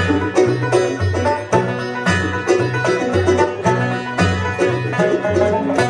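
Bluegrass band playing an instrumental passage: banjo, fiddle, mandolin, acoustic guitar and upright bass together, with the bass keeping a steady beat of about two notes a second under fast picked notes.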